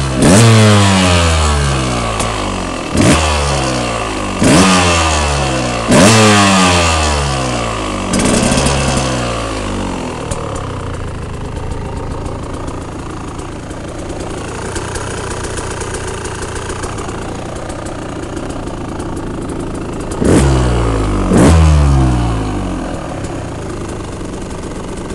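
2007 KTM 125 EXC's stock 125cc two-stroke engine blipped sharply on the throttle, the revs falling away after each blip: five blips in the first eight seconds, the last one weaker. It then idles steadily for about ten seconds before two more quick blips.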